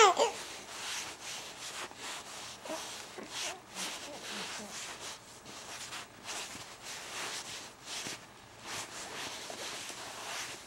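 An infant's brief high-pitched squeal right at the start, then soft, irregular rustling and rubbing sounds with a few faint baby coos.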